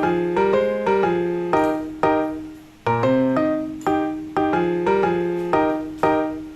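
Background music: piano playing a repeating melody, each note struck and fading away.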